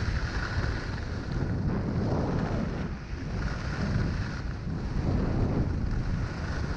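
Wind buffeting a GoPro's microphone while riding down a groomed ski slope, a steady low rumble, with the hiss of edges scraping the snow swelling on the turns, about two and five seconds in.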